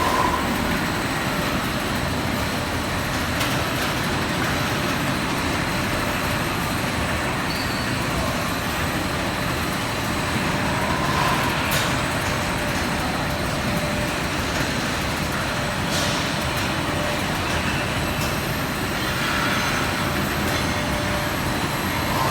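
Steady mechanical running noise of industrial machinery, with a few faint sharp clicks.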